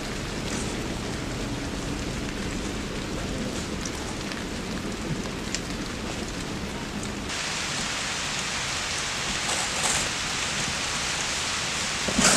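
Steady rain falling, heard as an even hiss; the hiss turns brighter and thinner about seven seconds in, and a short knock comes near the end.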